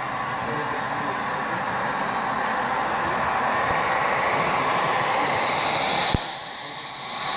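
HO scale model freight train running past on the layout track, its locomotives and cars rolling along steadily and getting louder as the locomotives pass close. A sharp click about six seconds in, after which the sound briefly drops.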